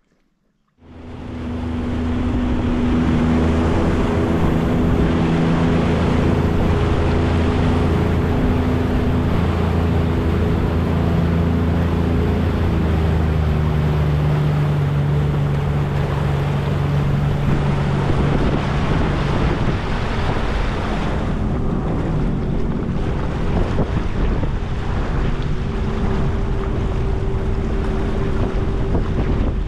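Sea-Doo RXT-X 300 personal watercraft running underway, its supercharged three-cylinder Rotax engine droning steadily over the rush of its wake and wind on the microphone. The sound starts about a second in, the engine note shifts partway through, and the rushing eases in the last third.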